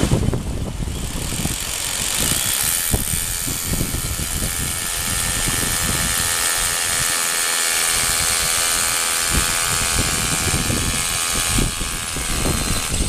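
Handheld electric power drill running steadily as it bores into rock, its motor whine starting a couple of seconds in and stopping near the end. Under it is the steady rush of a fast glacial stream.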